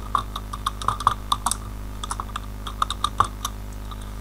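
Typing on a computer keyboard: a quick, irregular run of key clicks with a short pause about halfway through, over a steady low hum.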